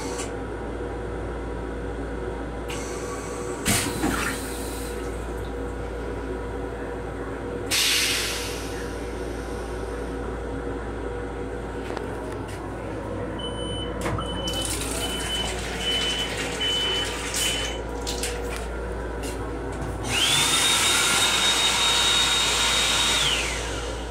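Restroom fixtures aboard a moving M7 electric railcar, over the car's steady running rumble. There is a sharp click about four seconds in, a short rush a few seconds later, and a repeating beep in the middle. Near the end comes the loudest sound, about three seconds of rushing with a whine that rises, holds and then falls away.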